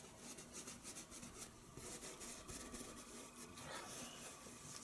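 Faint scratchy rubbing of a paintbrush on canvas in short irregular strokes, blending wet oil paint.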